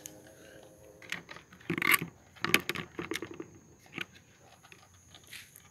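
Plastic bucket with a thin wire handle being grabbed and handled on concrete: a cluster of clinks, knocks and scrapes, loudest about two seconds in.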